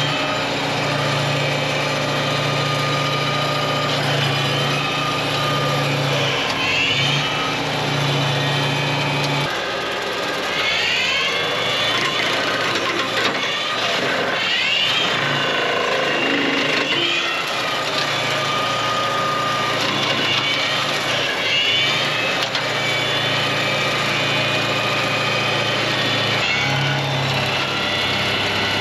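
Diesel TYM tractor running with a loader-mounted Lane Shark hydraulic brush cutter spinning and chewing through brush. The cutter's whine slows and speeds back up several times: moving the loader hydraulics drags its speed down a little.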